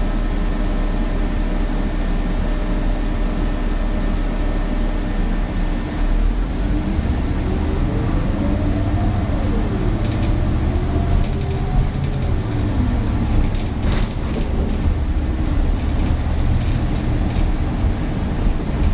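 Cabin sound of an old bus driving: a steady engine and road rumble. About seven seconds in a whine rises and falls as the engine revs up and eases off. From about ten seconds on the creaky body rattles and clicks.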